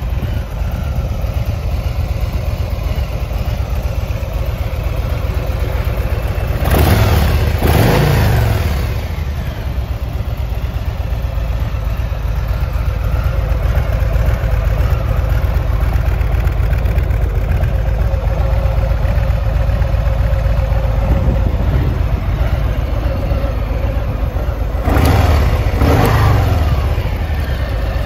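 Harley-Davidson Street Bob 114's Milwaukee-Eight 114 V-twin engine idling steadily. It is revved twice, each time with a quick pair of throttle blips that rise and fall in pitch, once about seven seconds in and again near the end.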